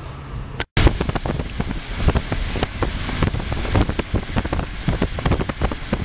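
Strong wind buffeting the microphone: a loud, rushing noise full of rapid thumps. It starts abruptly after a brief dropout less than a second in.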